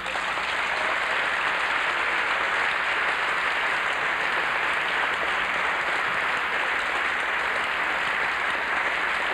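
A large hall audience applauding, a dense, steady clapping held at an even level throughout.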